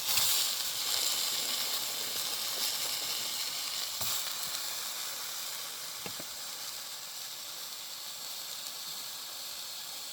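Pepperoni and hot dogs sizzling as they fry in a pan, loudest right at the start and slowly easing off, with a couple of faint taps partway through.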